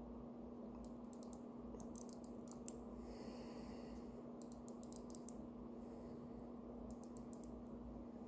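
Clusters of faint, quick clicks from handling a small vintage manual-wind wristwatch, over a steady low hum.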